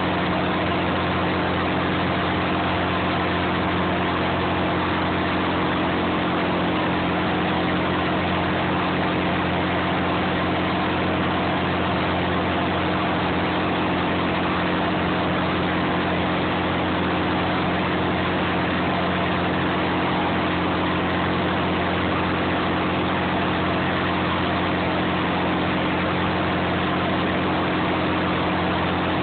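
A clam boat's engine running at a constant speed: a steady drone with a few fixed low tones over a hum, without any change throughout.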